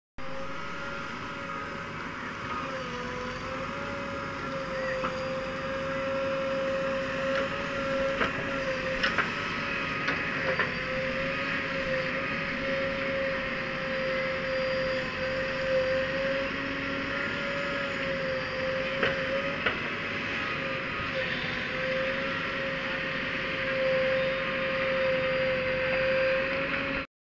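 JCB 3DX Super backhoe loader's diesel engine running close by, with a steady whine that wavers slightly in pitch as the load changes. A few faint clicks or clanks come through, twice in the first half and again later.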